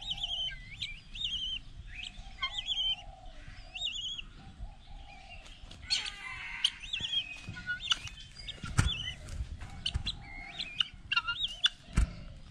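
Birds chirping over and over in short, wavering notes, with a lower buzzing call beneath them and a couple of dull thumps in the second half.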